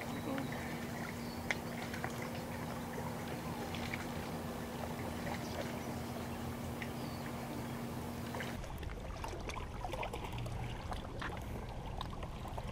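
Lakeshore water lapping and trickling under a steady low hum. The hum stops suddenly about two-thirds of the way in, and scattered small clicks and splashes follow.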